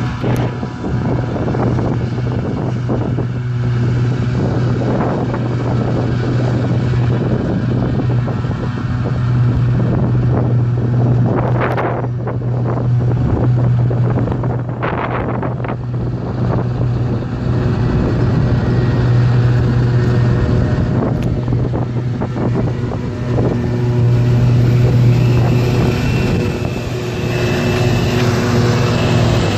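Claas Jaguar 870 self-propelled forage harvester chopping grass, with a Claas Axion tractor pulling a Kaweco silage wagon alongside. The engines make a steady low drone that draws nearer and grows a little louder.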